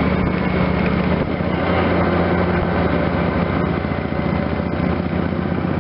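Motorcycle engine running steadily at low speed, with a constant low engine note.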